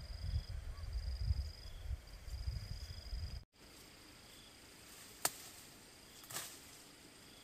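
Outdoor ambience with a steady, high-pitched insect chirring. Low rumbling in the first half stops abruptly, and later there is a sharp click followed by a softer knock.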